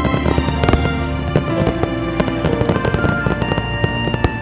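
Aerial fireworks bursting and crackling in quick, irregular bangs, over background music.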